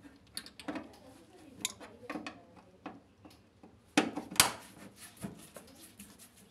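Long screwdriver working a screw inside a washer dryer's drain-filter recess: scattered metallic clicks and clinks of the tool against the screw and housing, with two louder clinks about four seconds in.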